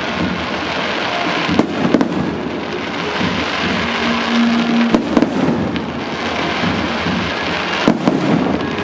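Fireworks going off: a continuous dense crackle, with pairs of sharp bangs about a second and a half in, around five seconds in, and near the end.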